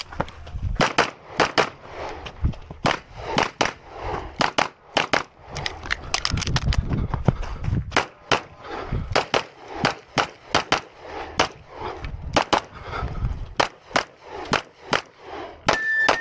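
Semi-automatic pistol firing rapidly, dozens of shots mostly in quick pairs, with short pauses between strings while the shooter moves between targets.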